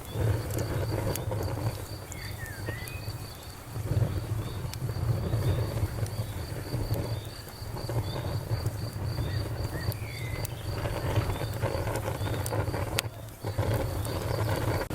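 Campfire wood crackling with scattered sharp pops over a steady low rumble, while crickets chirp steadily and evenly in the background.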